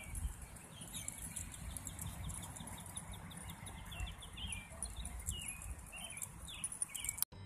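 Open-air park ambience: birds chirping, with a quick trill about a second in, over a low steady rumble. The sound cuts off abruptly just before the end.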